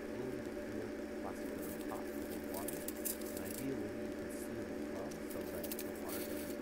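Light rustling and crinkling from hands handling cotton balls, small vinyl tubing pieces and a paper seed packet, in scattered short bursts over a steady low hum.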